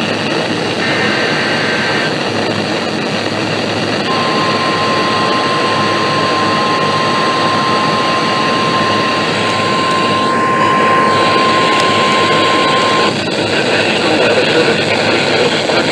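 NOAA Weather Radio alert coming through a weather radio receiver. Brief data-burst tones of the SAME alert header sound in the first couple of seconds. Then, about four seconds in, the steady 1050 Hz warning alarm tone sounds for about nine seconds and cuts off, heralding a new severe thunderstorm warning. A steady noisy hiss runs underneath.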